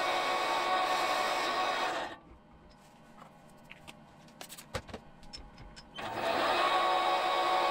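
Small metal lathe running steadily while boring a cast iron piston ring blank. It stops about two seconds in, a few light clicks follow as the tool is handled, and about six seconds in it starts again for a repeat finishing pass with no adjustment.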